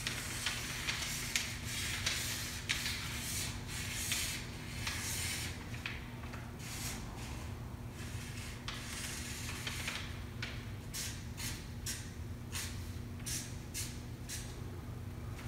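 Marker pen tip rubbing and dabbing on paper: longer scratchy strokes in the first half, then quick short dabs several a second. A faint steady low hum runs underneath.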